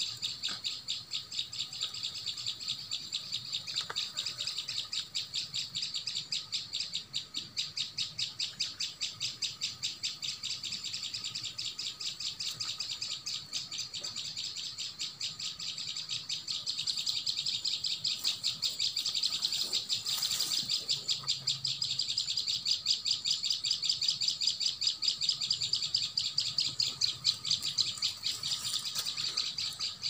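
Parent prenjak lumut (a prinia) giving a rapid, unbroken series of high scolding chirps, growing a little louder about halfway through: alarm calls at an intruder close to its nest of nestlings.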